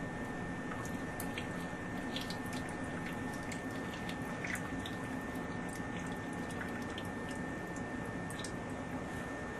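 Water dripping and trickling in a basement sump pit around a submersible sump pump: scattered irregular drips over a steady hum.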